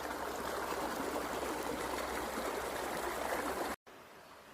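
Mountain river rushing over stones in a steady, even roar of water. It cuts off suddenly near the end, leaving a much quieter background.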